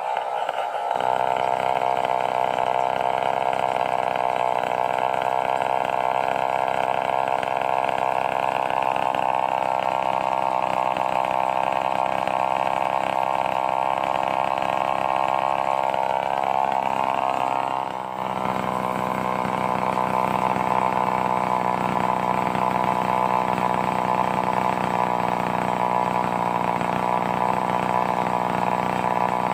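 Stihl 038 two-stroke chainsaw running steadily at speed, with a short dip and a change in tone about eighteen seconds in.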